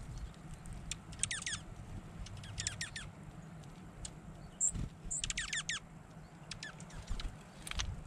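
Small songbirds calling: three quick bursts of high, sharply falling chirps, about a second, two and a half and five seconds in, with a few single high notes between them, over a steady low rumble.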